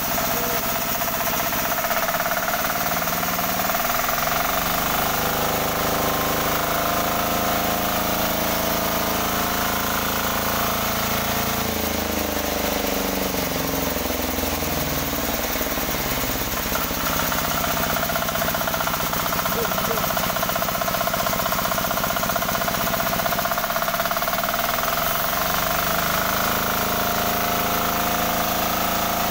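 18 hp single-cylinder-style diesel engine running a sawmill machine on its trial run, a steady loud knocking run whose pitch shifts in the middle and again near the end.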